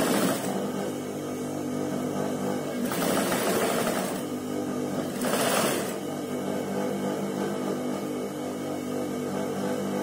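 Sewing machine stitching piping onto a neckline in three short runs: near the start, about three seconds in, and about five and a half seconds in. A steady motor hum runs underneath.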